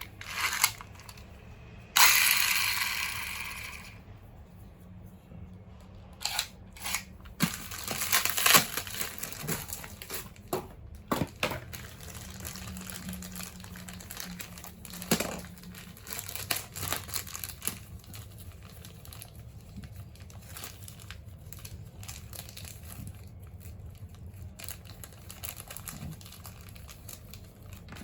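Plastic packaging being crinkled and torn open, with one long loud rip about two seconds in that fades out. Many short clicks and taps follow as the small plastic top parts are handled, growing sparse toward the end.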